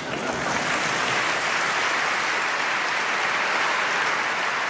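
Large audience applauding. The applause breaks out at once and holds steady.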